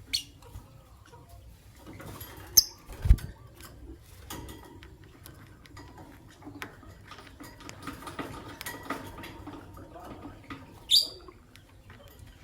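Lovebirds scrabbling and pecking about their cage, a scatter of scratchy rustles and small clicks, broken by three short sharp chirps near the start, about two and a half seconds in and near the end. A dull thump comes about three seconds in.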